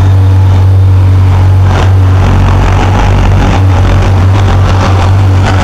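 Irish Rail 29000 class diesel multiple unit running at close range, its underfloor diesel engines giving a loud, steady low drone, with a few short clicks over it.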